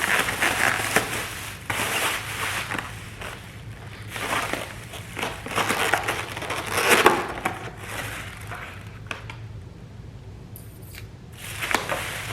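Irregular bursts of crunching and crinkling from handling a crawfish meal, with the loudest crunch about seven seconds in.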